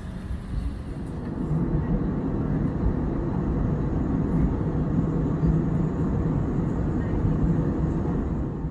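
Steady cabin noise of a jet airliner in flight, heard from a window seat: a low rumble with a fainter hiss above it. It grows louder about a second and a half in.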